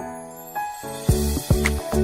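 Background music: sustained chime-like notes, then a rising swell, with a steady beat of bass drum hits coming in about a second in.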